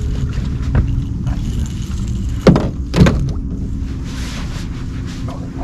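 Two heavy knocks on the aluminium fishing boat, about half a second apart midway through, over a steady low rumble.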